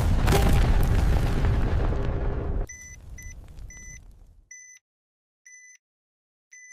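Bomb-timer explosion sound effect: a loud explosion that cuts off suddenly after about two and a half seconds into a fading rumble. Then the timer's short, high electronic beeps resume, about once a second.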